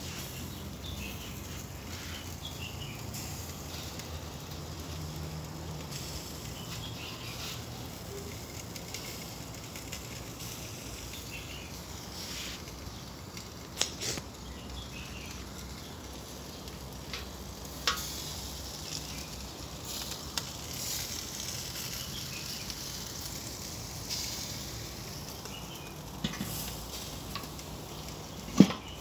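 Chicken sizzling on a charcoal kettle grill under the closed lid, a steady hiss with a few sharp clicks, the loudest near the end.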